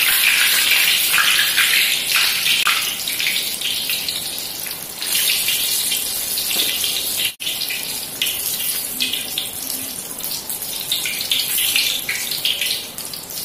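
Hot oil sizzling and crackling around a whole tomato frying in a wok, a steady hiss that cuts out for an instant about halfway through.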